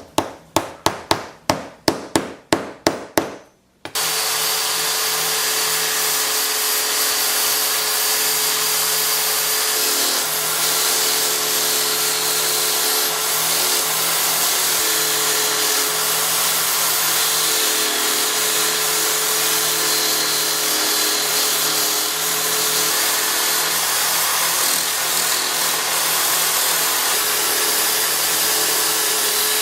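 About a dozen quick, sharp clicks, then a wood lathe starts and runs steadily with a constant motor hum while a tool cuts the Purple Heart handle blank.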